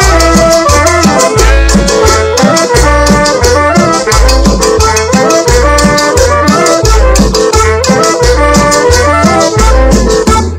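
Cumbia music playing loud over a sonidero dance sound system. A heavy bass beat comes about twice a second under a fast rattling shaker and a busy melody line.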